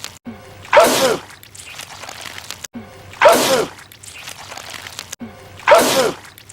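A man sneezing over and over from a looped clip: the same loud, wet sneeze three times, about two and a half seconds apart, each a falling voiced intake breaking into a sharp burst.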